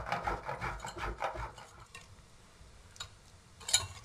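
Chocolate being grated on the fine side of a stainless-steel box grater: quick, regular scraping strokes that stop about two seconds in. A brief clatter near the end.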